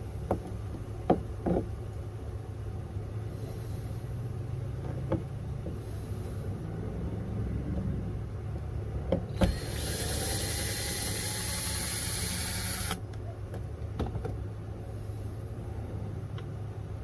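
A few sharp clicks and knocks of a socket working the last hatch-ring nuts off, over a steady low hum; about halfway through, a small motor whirs for roughly three seconds, its pitch rising slightly, then cuts off suddenly.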